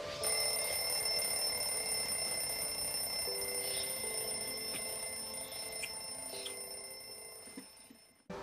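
Soft film-score music of slow, held notes, with a steady high-pitched ringing tone over it. The music fades away near the end.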